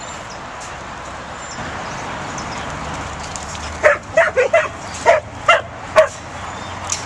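Pembroke Welsh Corgi puppy barking at the sheep it is chasing: a quick run of about seven short, sharp, high yaps starting about four seconds in, over a steady hiss.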